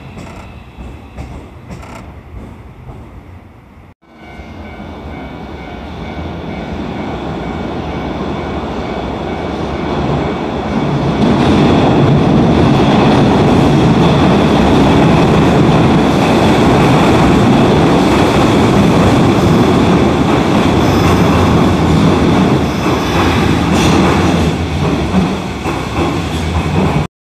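A maroon Hankyu train running on open track for the first few seconds. Then, after a cut about four seconds in, an orange-and-cream Hanshin train pulls out of an underground station. Its running noise and wheel clatter build over several seconds, stay loud, and cut off abruptly just before the end.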